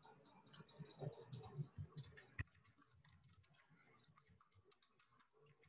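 Computer keyboard typing in quick, light keystroke clicks. The clicks are denser and louder in the first two and a half seconds, ending in one sharp click, then fade to fainter, sparser keystrokes.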